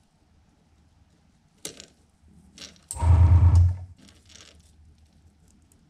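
Hand-handling noise of mesh scale netting being pulled tight and clipped around a crankbait blank: a sharp click about a second and a half in, then a louder noisy scrape starting suddenly around the middle and lasting nearly a second.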